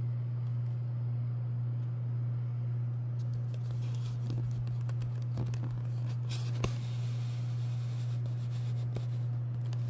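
Steady low hum from a small motorized display turntable as it rotates, with a few faint clicks and one sharper tick a little past halfway.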